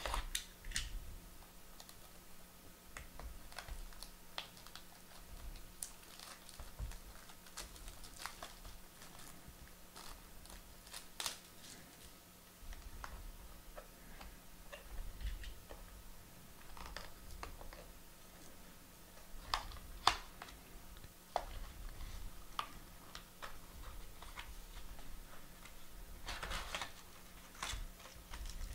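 Trading-card box and packaging being opened by hand: scattered light clicks, taps and rustles of cardboard, with a denser run of crinkling near the end as the foil pack is reached.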